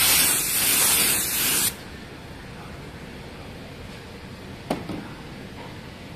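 Compressed-air paint spray gun spraying a coat onto a car body panel: a loud, steady hiss that cuts off sharply about a second and a half in. A single short knock follows near the end.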